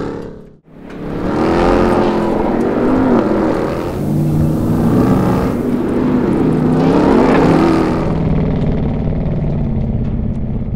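Ram 1500 TRX's supercharged 6.2-litre HEMI V8 revving hard under power, its pitch rising and falling several times as the truck slides through dirt corners. The sound cuts out for a moment about half a second in.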